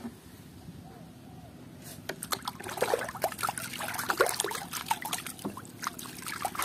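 Water splashing and trickling as a muddy toy animal is rinsed and rubbed by hand in a tub of water. Small irregular splashes and clicks begin about two seconds in.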